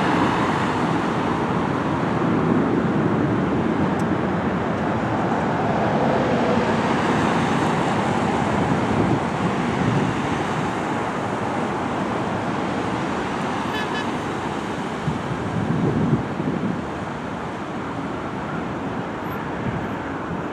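Boeing 737 MAX 8 airliner's CFM LEAP-1B turbofan engines at takeoff thrust, a steady jet roar that slowly fades as the aircraft climbs away.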